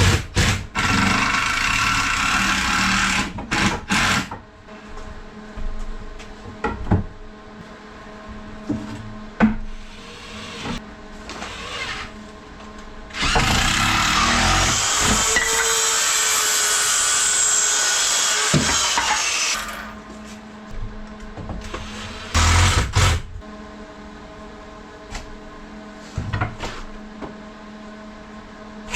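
Power drill driving screws into the wood of a workbench frame: a few short runs at the start, one long run of about six seconds in the middle and a short one later, with scattered knocks and clatter of wood between.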